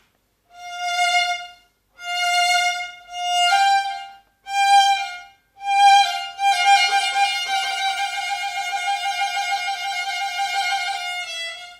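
Solo violin playing a slow bowed phrase: five separate notes of about a second each, climbing slightly, then one long note held with vibrato for about five seconds.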